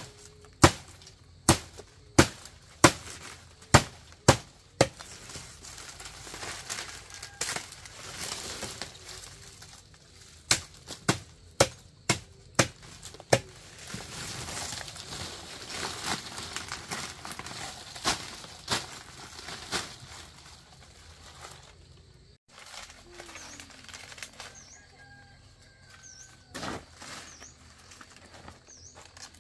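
Two runs of sharp, evenly spaced knocks, about one and a half a second, like repeated strikes on something solid. Near the end a short, high chirp repeats about every second, typical of a small bird.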